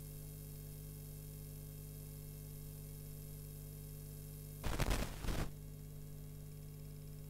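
Steady electrical hum with a faint hiss, broken about four and a half seconds in by a loud crackling burst of noise lasting under a second.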